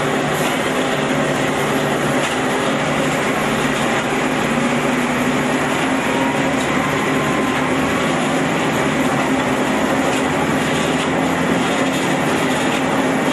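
A concrete block making plant running: the electric-motor-driven mixer and the QT4-26 automatic block machine. Together they make a loud, steady mechanical din with a constant hum under it.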